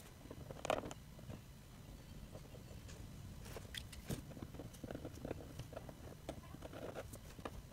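Faint scratchy strokes of a felt-tip marker tracing on paper, with a few light clicks and taps of pens being handled; the loudest come just under a second in and again around four seconds in.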